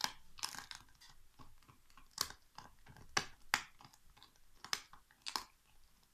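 Alaskan Malamute chewing a big turkey bone: irregular sharp crunches of bone about every half second to a second, with softer gnawing between.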